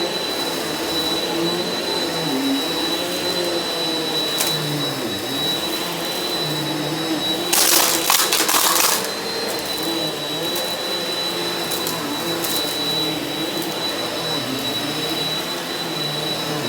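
Eureka NEU180B Power Speed upright vacuum cleaner running steadily over carpet, with a steady high whine. About halfway through, a louder burst of hissing noise lasts about a second and a half.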